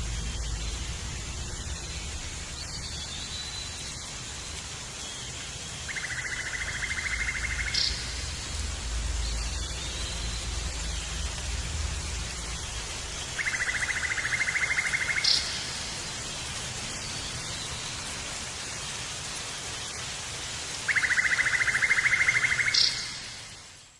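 Steady outdoor hiss with a low rumble. Three times, about seven seconds apart, comes a rapid buzzing trill lasting about two seconds, each ending in a brief higher note.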